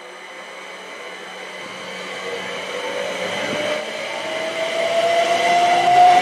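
Class 379 Electrostar electric multiple unit passing close by, growing steadily louder. Its motor whine rises in pitch as the train gathers speed, over the rumble of wheels on the track.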